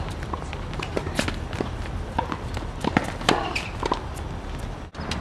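Tennis rally on a hard court: sharp pops of the racket striking the ball and the ball bouncing, with quick footsteps and shoe scuffs between the strikes.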